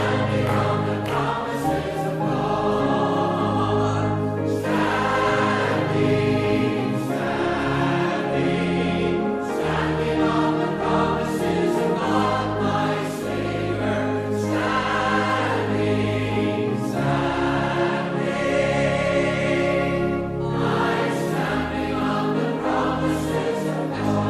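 A choir singing a hymn with instrumental accompaniment, in held chords over sustained bass notes.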